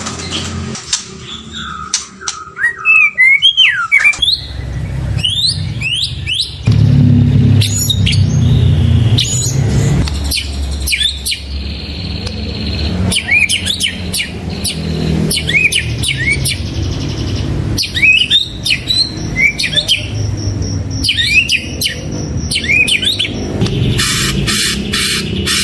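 White-rumped shama (murai batu) singing: a varied string of quick whistled notes and sharp sweeping chirps, with a fast run of repeated notes near the end. A steady low rumble sits beneath from about four seconds in.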